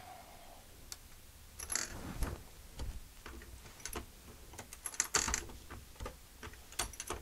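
Hand-operated metallic cartridge reloading press being cycled: sharp clicks and clatters of the lever, ram and linkage as a .44 Magnum case is run up into the powder die to drop a charge. There are three louder metallic clatters, about two, five and seven seconds in.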